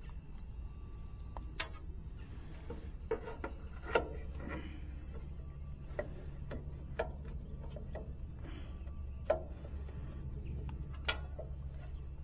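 Light clicks and taps of hand tools and small metal parts being handled, one every second or two, over a steady low hum.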